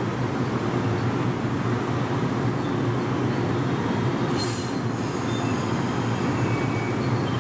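A train running at a station platform, a steady rail rumble and hum, with a brief high-pitched sound from the wheels or brakes about four and a half seconds in.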